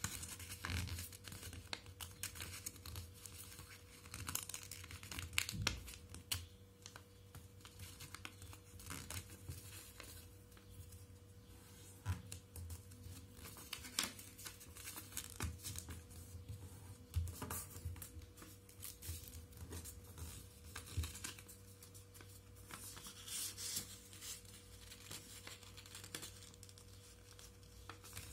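Paper rustling and crinkling as it is folded and creased by hand, with irregular small crackles and taps.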